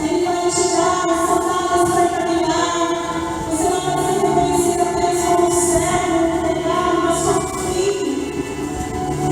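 A church choir singing with instrumental accompaniment, female voices to the fore, moving through long held notes.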